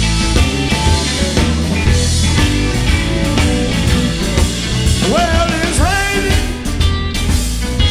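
Live electric blues band playing: two electric guitars over a bass guitar and a drum kit. From about five seconds in, several notes slide upward in pitch.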